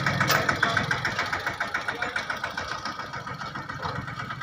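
An engine running with a fast, even beat, fading steadily.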